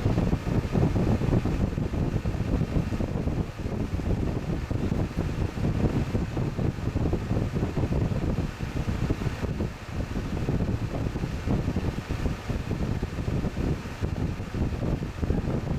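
Haier JA-SP25G portable spot air conditioner running: a steady rush of fan air with an uneven low rumble.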